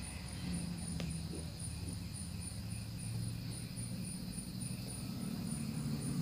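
Crickets chirping in an even, high-pitched pulse about four times a second, over a steady low hum. A faint click about a second in.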